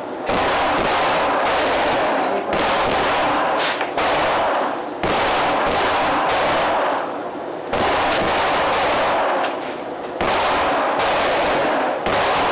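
Rapid strings of 9mm gunshots, roughly two a second with short pauses between strings, each shot leaving an echoing tail that runs into the next.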